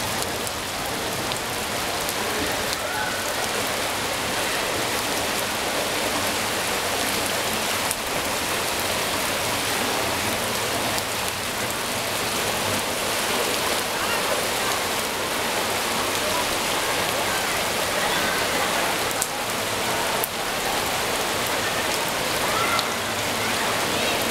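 Heavy rain pouring down onto a flooded street: a dense, steady hiss.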